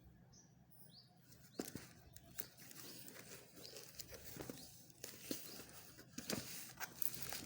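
Packaging being handled: irregular rustles, taps and sharp clicks of a box and its contents being opened.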